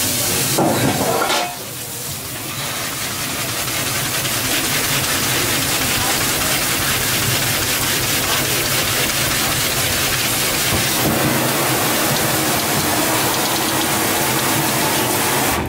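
Kitchen tap water running hard onto boiled ramen noodles in a stainless mesh strainer in a steel sink as they are rinsed, a steady splashing that dips briefly about a second and a half in.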